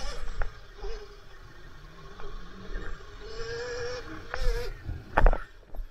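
Sur-Ron electric dirt bike riding along a dirt trail: a steady motor whine that swells and rises a little with speed, under a low rumble. Sharp knocks come from the bike over bumps, the loudest near the end.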